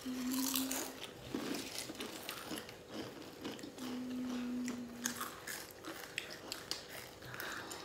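People chewing and crunching Doritos Flamin' Hot tortilla chips, with many short crisp crunches. Two short low steady hums stand out, one at the start and a longer one about four seconds in.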